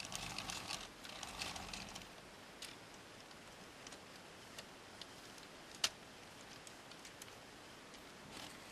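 Plastic clicking and rattling from a LEGO Technic buggy's gearing as it is worked by hand. There is a clatter over the first two seconds, then scattered light ticks, and one sharp click a little before six seconds in as the gearbox is shifted into second gear.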